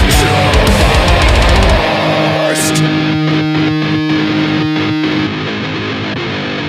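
Djent/metalcore band music with distorted electric guitars. About two seconds in, the heavy low end and drums drop out, leaving held guitar chords broken by rhythmic stops.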